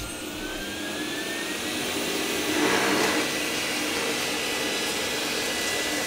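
Roborock S5 Max robot vacuum starting up. Its suction fan spins up with a whine that rises in pitch over the first two seconds, then runs steadily.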